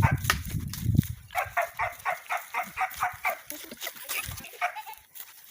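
An animal calling in a quick run of short, even calls, about four a second, after a low rumbling noise that stops about a second in.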